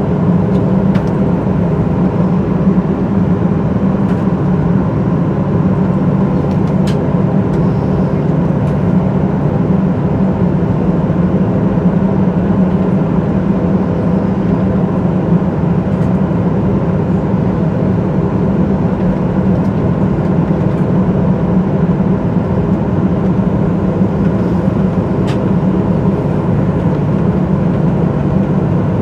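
Boeing 737-800's CFM56 jet engines running steadily, heard inside the cabin as a loud, even hum and rush with a few faint clicks.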